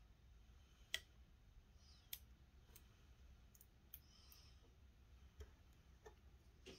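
Near silence with a few faint, scattered clicks and light scraping from tape being cut on an Xbox Series X console; the sharpest click comes about a second in.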